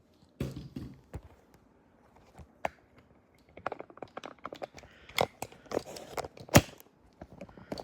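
Handling noises close to the microphone: a run of small clicks, taps and rustles, growing busier halfway through, with one sharp click near the end.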